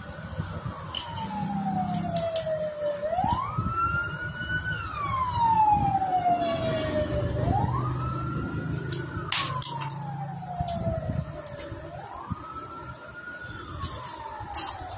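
Siren wailing, its pitch rising quickly, holding briefly, then sliding slowly back down, repeating about every four and a half seconds. A few sharp metallic clicks of engine parts being handled sound over it, the loudest about nine seconds in.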